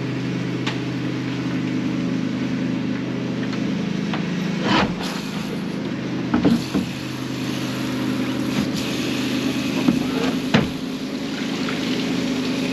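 Car engine running with a steady low drone, with a few brief knocks.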